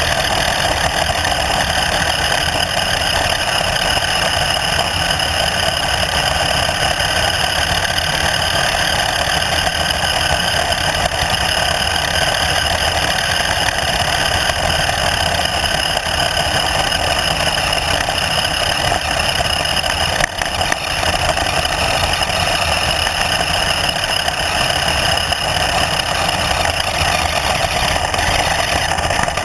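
Engine running steadily, a constant drone with a high whine that holds one pitch, briefly dipping about twenty seconds in.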